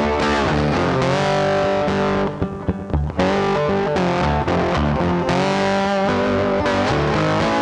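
Background music: a rock track with distorted electric guitar, with a short break about two and a half seconds in.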